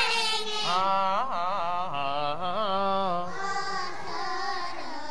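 Voices chanting an Urdu reading lesson in a sing-song melody, the pitch sliding up and down on drawn-out syllables.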